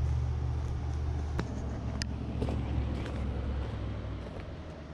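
A vehicle engine running with a low, steady rumble that fades out about four seconds in, with a few sharp clicks over it.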